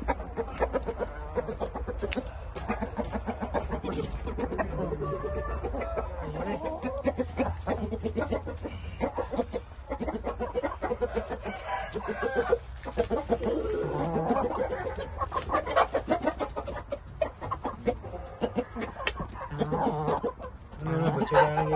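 Thai Shamo chickens clucking and calling over one another almost without pause, with a rooster crowing among them.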